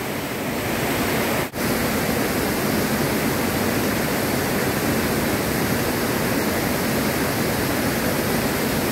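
Steady rush of flowing river water, an even hiss that drops out for an instant about one and a half seconds in.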